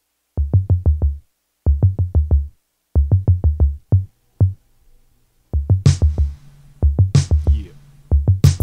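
A hip hop track's programmed drum beat starts after a moment of silence: quick runs of deep kick-drum hits broken by short gaps. About halfway in, a sharp snare joins on roughly every second and a quarter over a low bass note.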